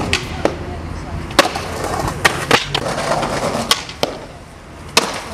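Skateboard wheels rolling on concrete, broken by a series of sharp clacks as the board is popped and lands.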